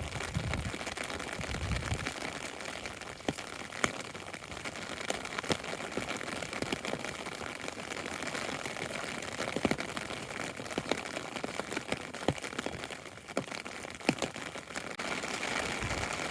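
Heavy rain falling on an open umbrella held over the camera: a steady hiss of rain with individual drops striking the canopy as irregular sharp taps. There are a few low thumps in the first couple of seconds.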